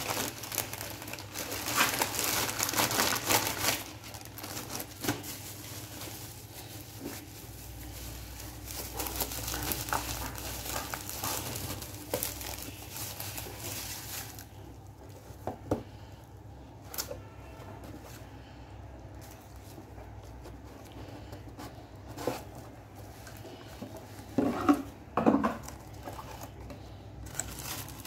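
Plastic courier bag and bubble wrap crinkling and tearing as a parcel is opened by hand, loudest in the first few seconds. Quieter handling of packaging follows, with a few sharp knocks near the end.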